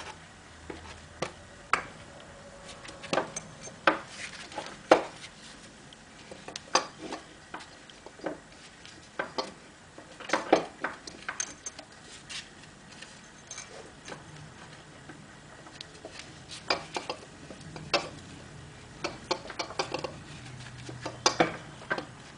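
Irregular metallic clinks and knocks of motorcycle parts and tools being handled as a swing arm is worked into place. The sharp taps come in scattered clusters, with a few louder clanks.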